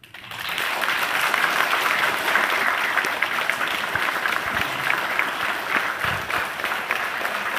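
A large audience of schoolchildren and adults applauding, the clapping building up within the first second and then holding steady.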